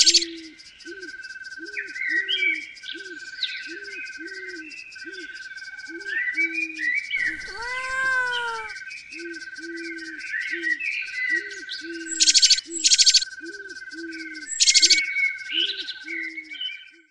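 Nature ambience: birds chirping and twittering over a steady pulsing insect trill, with a low call repeated about twice a second underneath. About seven seconds in, a louder animal call that rises and then falls cuts across for a second or so, and there are loud bursts of chirping near the end.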